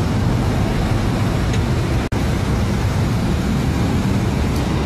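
Steady engine and road-traffic noise with a low hum, broken by a very brief dropout about two seconds in.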